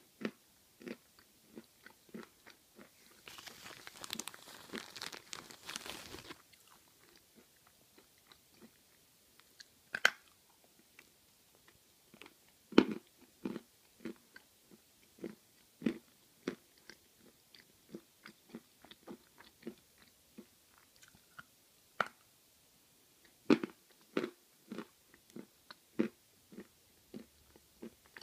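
Someone biting and chewing Belgorod eating chalk close to the microphone: a long run of short, very crunchy bites, roughly one or two a second, a few much louder than the rest. About three seconds in comes a three-second burst of hissing noise.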